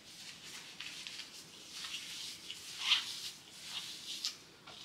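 Disposable-gloved hands working hair dye remover through wet hair: faint, irregular rustling and rubbing, with one louder stroke about three seconds in.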